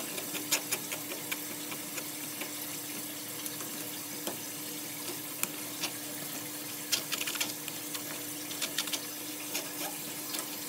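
Metal spoon scraping and pressing thick chile sauce through a wire-mesh strainer, with clicks of the spoon on the mesh and the sauce dripping into a pot of simmering broth. A steady hum runs underneath.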